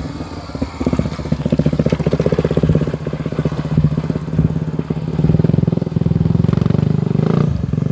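Honda XR250 Tornado's single-cylinder four-stroke engine running, a rapid steady chug that gets louder about a second in.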